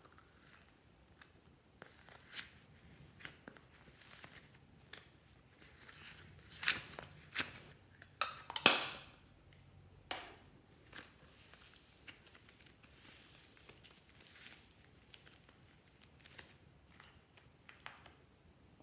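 Close handling noises of slime play: clicks and taps from a hollow plastic container, and fluffy slime squishing and crackling as it is scooped out and pressed into the tray. The crackling comes thickest and loudest in a cluster about halfway through.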